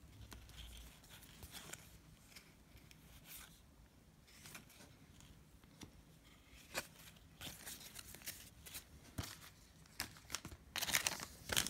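Trading cards being handled and flipped through, faint scattered clicks and rustles, then near the end a louder stretch of crinkling and tearing from a foil card-pack wrapper.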